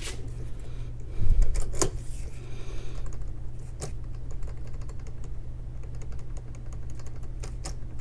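Key blank being twisted and rocked in a Master Lock padlock to impression it: rapid light metallic clicking and rattling, with a few sharper clicks, over a steady low hum.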